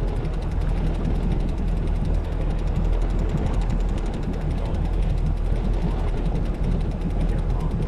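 A boat's motor running steadily, a low even hum with no change in speed.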